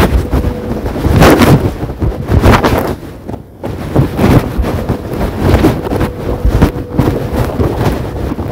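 Loud wind buffeting the microphone in irregular gusts, with a brief lull about three and a half seconds in.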